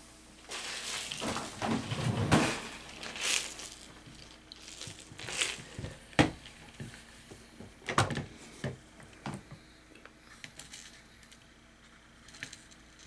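Rustling and handling noise, then several separate sharp clicks and knocks from a clear plastic compartment box of beads being set on the table and opened.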